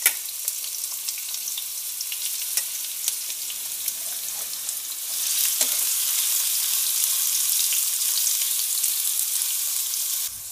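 Sliced red onions sizzling in hot oil in a steel kadhai, with a steel ladle clicking and scraping against the pan as they are stirred. The sizzle grows louder about halfway through.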